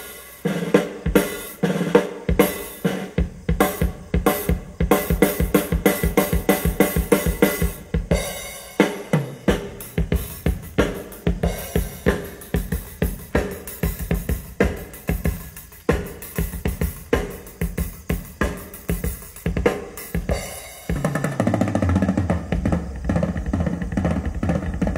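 A raw, unprocessed drum-kit track is played loud through a PA stack of one 18-inch subwoofer and two 15-inch mid speakers, as a sound-system test. It gives a steady beat of kick, snare and cymbal hits. About 21 seconds in, it changes to a denser, steadier sound with heavy bass.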